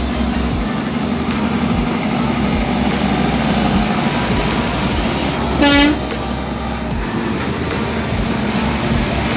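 Heavy diesel trucks passing close by, a Kenworth tractor-trailer followed by a rigid cargo truck, with a steady rush of engine and tyre noise. About halfway through, one short horn blast is the loudest sound.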